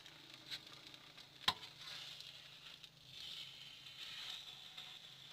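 Hot oil sizzling steadily as batter fries in a pan on a gas stove, with a sharp click about one and a half seconds in and a fainter one just before it.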